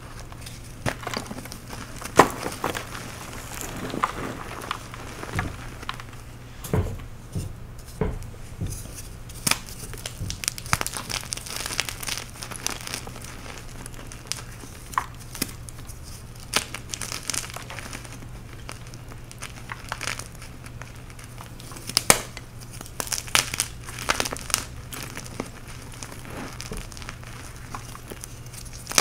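Soft dyed chalk blocks dusted with glitter being squeezed and crumbled into powder by bare hands: an irregular run of crisp crunches and crackles, with sharper snaps now and then as pieces break off.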